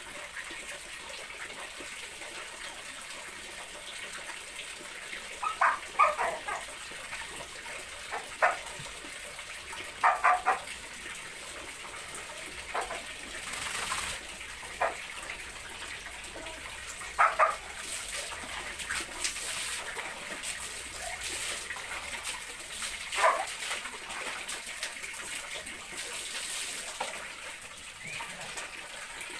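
Small dogs giving short, high barks and yips in scattered bursts, some in quick pairs, over a steady hiss and brief splashes of water.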